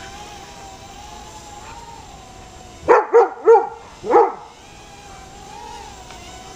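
A dog barks four times in quick succession about three seconds in, over the steady, slightly wavering whine of a quadcopter drone's propellers.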